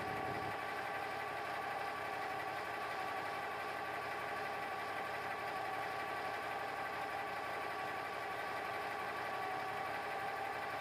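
Coiled tubing unit's hydraulic power pack running steadily at about 1500 rpm, a constant machinery hum with a steady whine from the pressurised hydraulic pump circuit.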